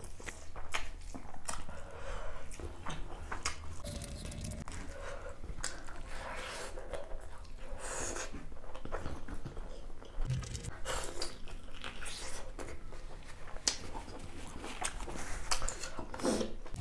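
Close-miked eating of spicy duck curry: a person chewing, with many irregular short wet clicks and smacks from the mouth.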